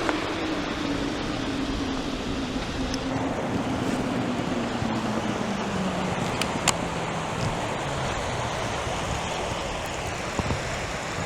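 Sea surf washing in, with wind on the microphone. A faint low hum slowly falls in pitch through the first half, and there are a few brief clicks.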